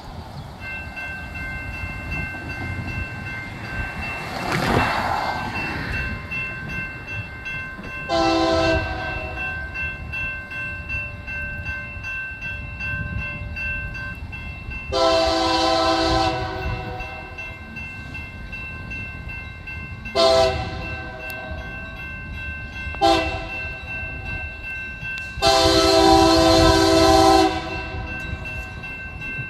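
A diesel locomotive's air horn sounding a chord in five blasts (two longer ones, two short, then a final long one) as the train nears a grade crossing. Under it the crossing signal's warning bell rings steadily from about a second in, over a low rumble of the approaching train.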